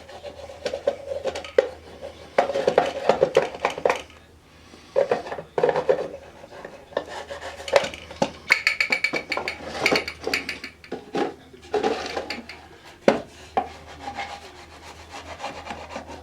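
Irregular rubbing, scraping and light clattering of small objects being handled, over a low steady hum.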